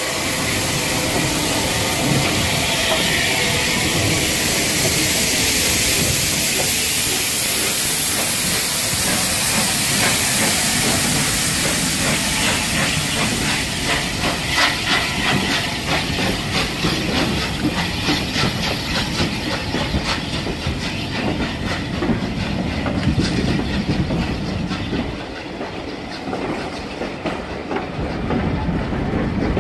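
Bulleid Battle of Britain class steam locomotive 34081 '92 Squadron' hissing steam as it pulls away. After about twelve seconds the hiss fades and the passing coaches' wheels clatter in a quick rhythm over the rail joints.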